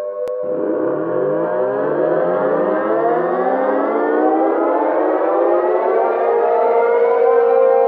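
Outdoor warning siren winding up: a steady held tone at first, then about half a second in a click and many tones rising together from low pitch, climbing slowly and levelling off.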